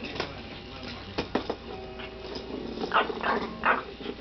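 Maltese dog growling at play, with three short barks about three seconds in. A few sharp knocks come in the first second and a half.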